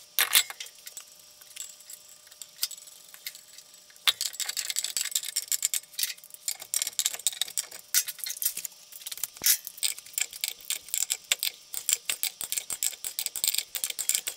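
Sharp metallic clicks as a wheel is fitted to a Porsche 356's hub. From about four seconds in comes a fast, irregular run of ratchet-wrench clicking as the lug bolts are run in.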